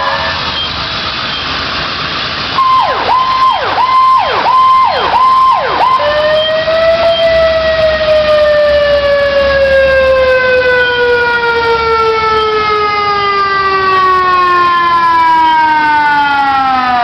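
Emergency vehicle siren, loud: held at a high pitch with about five quick sharp dips, then one long wail winding slowly down in pitch that falls away near the end.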